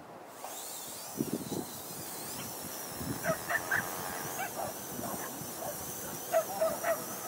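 Dogs barking and yipping in short bursts, twice in clusters, as they race out of the starting boxes after a lure. A few low thumps come about a second in, and a thin, wavering high whine runs behind them.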